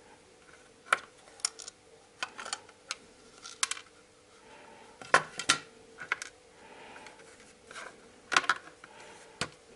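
Sharp plastic clicks and knocks of a UT33C multimeter's case being pried apart and its halves handled: about a dozen separate clicks, the loudest about five seconds in and again just past eight seconds.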